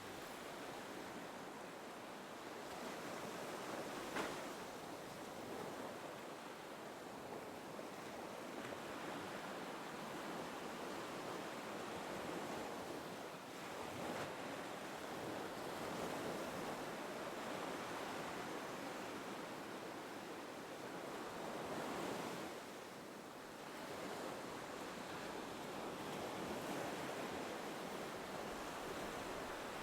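Gentle ocean waves washing in and drawing back, the surf swelling and easing every few seconds.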